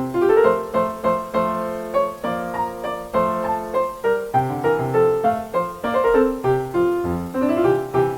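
Piano playing a melody over rising broken chords, a few notes a second.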